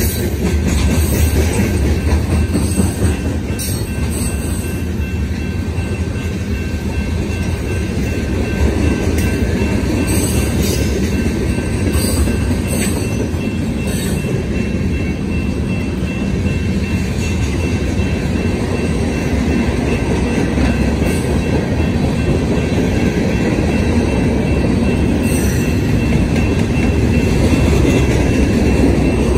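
Union Pacific freight cars rolling past on the main line: a steady low rumble of wheels on rail, with scattered sharp clicks from the wheels and a faint steady high-pitched squeal.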